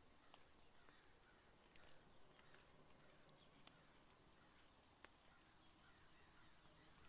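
Near silence, with faint scratching of a pen drawing on paper and a few soft clicks.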